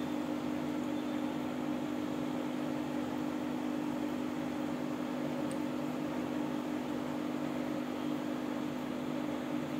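Small electric motor humming steadily: a constant low drone over a faint even hiss.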